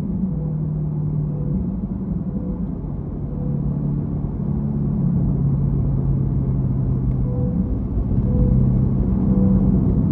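Chevrolet Corvette C8's V8 engine running with road rumble while the car is driven, heard as a low hum whose pitch steps up and down with engine speed.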